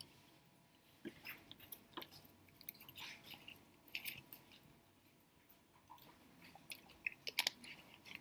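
Faint, irregular clicks and short rustles in a quiet room, the more noticeable ones about a second in, around three and four seconds in, and near the end.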